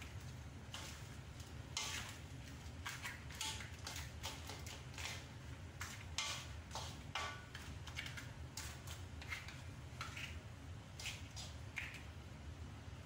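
Spatula stirring seafood and vegetables in a wok, with irregular scrapes and clacks against the pan over a steady low hum.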